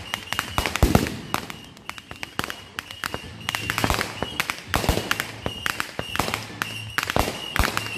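Aerial fireworks going off in quick succession: dense crackling and popping from many small bursts, with a loud cluster of bangs about a second in.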